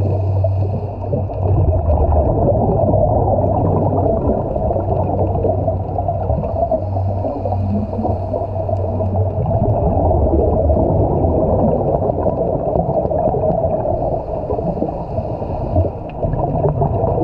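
Underwater ambient noise picked up through the action camera's housing: a steady low wash, with a fainter hiss that comes and goes about every seven seconds.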